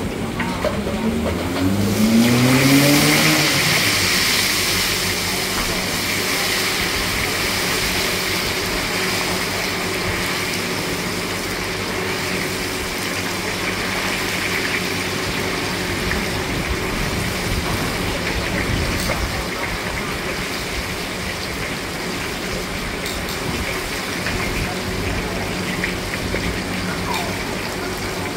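Tofu cubes sizzling as they deep-fry in a wok of hot oil. The sizzle starts about two seconds in, loudest as they go into the oil, then settles to a steady hiss. Over the first three seconds an engine note rises in pitch as it revs up.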